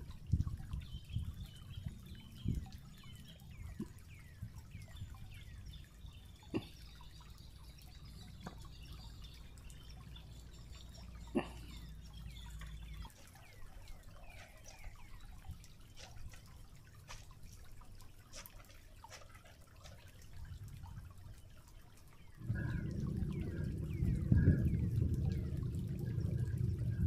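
Stream water dripping and trickling over rocks, with many small clicks and a few faint high chirps. About 22 seconds in, a louder low rumble sets in and runs on.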